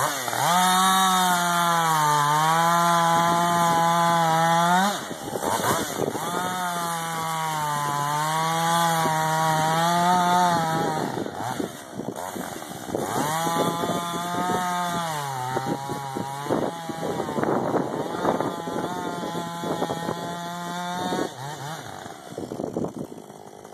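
Husqvarna 562 XP two-stroke chainsaw cutting into a dead ash trunk. It runs in three long spells at high revs, each about five to eight seconds, with the pitch sagging as the chain loads up in the cut. Between the spells it drops back to rougher, lower running, and it eases off near the end.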